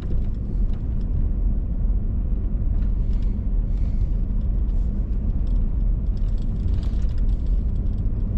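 Steady low rumble of engine and tyre road noise inside a moving vehicle's cabin.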